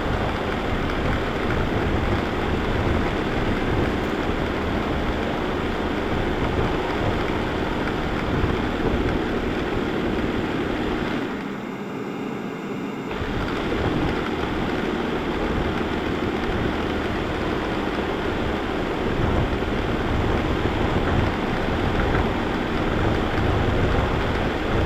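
Vacuum cleaner running steadily, a dense rushing motor-and-airflow noise heard close up. About halfway through, the low rumble briefly drops out for a couple of seconds before the full sound returns.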